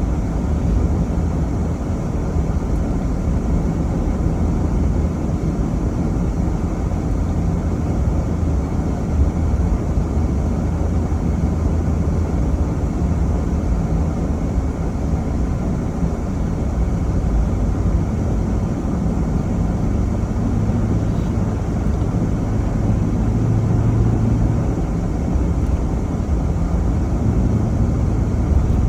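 Steady low rumble of a vehicle on the move: engine and road noise with no change in pace.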